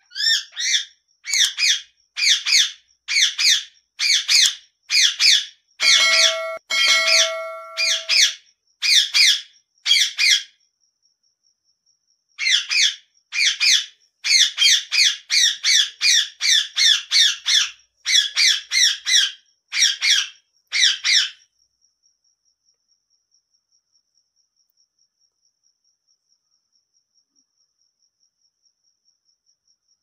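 Rose-ringed parakeet screeching, a shrill call repeated about every two-thirds of a second, with a short pause about ten seconds in and stopping about 21 seconds in. A steady lower tone sounds under the calls between about 6 and 8 seconds in.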